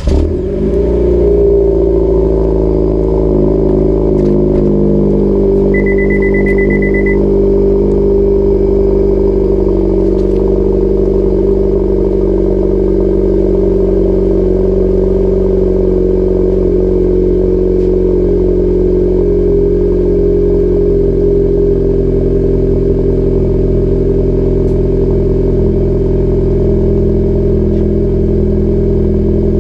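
Acura Integra engine starting with a quick surge, then settling into a steady idle through its EOS axle-back exhaust. A short electronic beep sounds about six seconds in.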